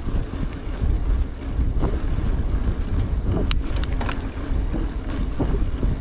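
Wind buffeting the microphone while riding a gravel bike, over a steady rolling hiss of 50 mm Goodyear Connector gravel tyres on a rough, patched road surface. A few sharp rattles a little past halfway, as the bike goes over bumps.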